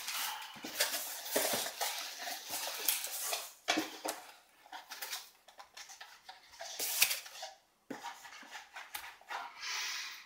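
A cardboard shipping box opened by hand: its flaps scraping, and paper and foam packing sheets rustling as they are pulled out, in irregular spells that thin out after the first few seconds.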